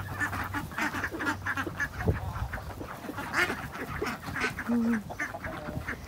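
A flock of ducks quacking in quick, overlapping calls.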